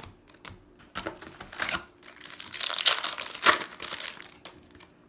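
Crinkling and rustling of a Topps Chrome trading-card pack's foil wrapper as the cards are handled, in irregular crackles that are busiest in the middle.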